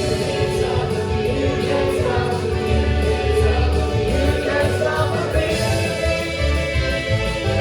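Music with a choir singing over instrumental accompaniment; the music changes about five and a half seconds in.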